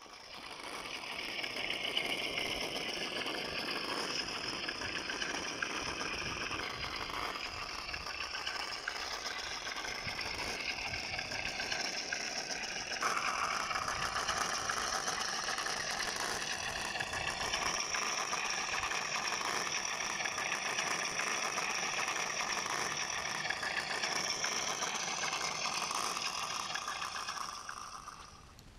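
Tamiya Wild Willy 2 radio-controlled car driving: its electric motor and gears run steadily with rattling. The sound shifts in character about halfway through.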